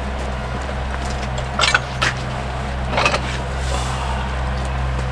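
Norwood portable sawmill's engine idling with a steady low hum, while sawn boards knock and clatter a few times as they are pulled off the mill bed.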